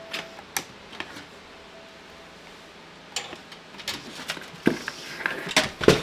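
Scattered clicks and knocks of SATA cables and their plastic connectors being handled against a steel PC case, sparse at first and busier from about four seconds in, the loudest knock near the end.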